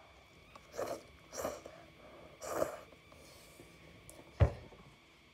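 Three quick slurps as instant ramen noodles are sucked in off a fork, then a single sharp thump near the end, the loudest sound.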